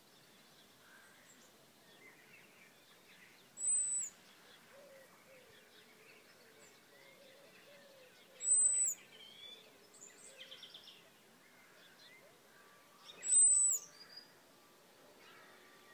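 European robin giving three high, thin calls about five seconds apart, each about half a second long, taken by the angler as calling for more maggots. Faint song of other birds runs underneath.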